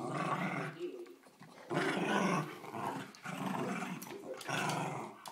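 Cairn terriers growling while playing tug-of-war over a toy: a run of about five growls of under a second each, roughly one a second.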